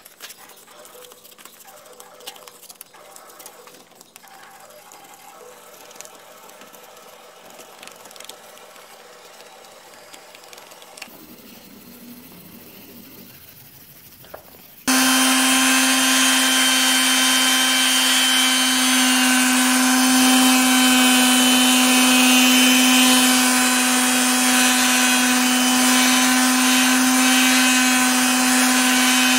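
A handheld electric detail sander starts suddenly about halfway in and runs loud and steady, its pad sanding the aluminium edge of a camper's siding. Before it, only faint scraping and light clicks.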